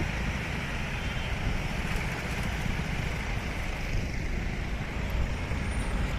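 A vehicle running steadily, a low rumble with no speech over it.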